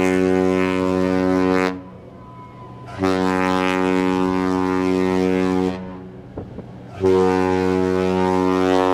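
Deep ship's horn sounding long, steady blasts of about three seconds each with short gaps between them: one ends about two seconds in, a second follows, and a third starts near the end.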